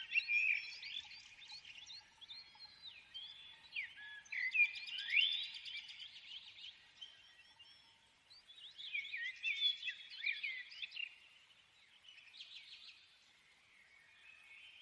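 Small birds chirping and twittering in several bursts a few seconds apart.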